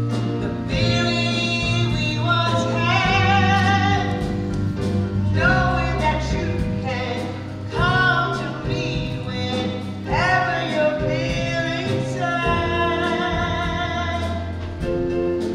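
Music: a voice singing long held phrases with wide vibrato over an instrumental accompaniment with a steady bass line.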